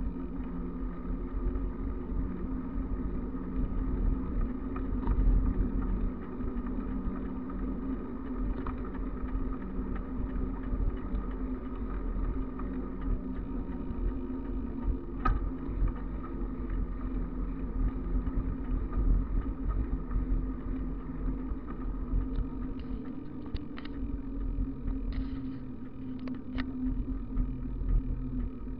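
Wind rushing over the microphone and tyres rolling on asphalt during a fast bicycle descent: a steady low rumble with a faint hum, and a few short clicks near the end.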